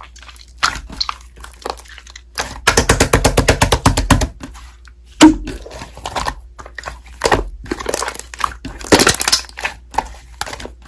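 Slime being squished and poked by hand, giving sticky clicks and crackling pops, with a fast run of pops about three seconds in.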